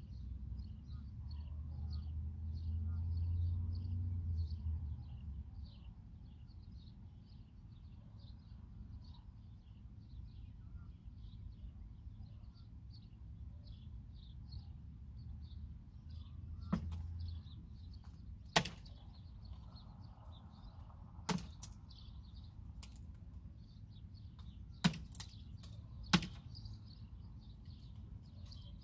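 Half a dozen sharp knocks, irregularly spaced through the second half, over a steady high chirping repeated about twice a second. A low rumble sounds in the first few seconds.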